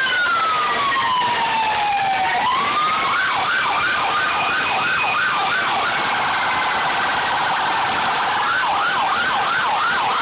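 Sirens of fire engines and an ambulance sounding together. A long wail falls in pitch over the first two seconds, then switches to a fast yelp of about three cycles a second, turns to a very rapid warble for a couple of seconds, and goes back to the yelp near the end. Fainter sirens from other vehicles overlap it.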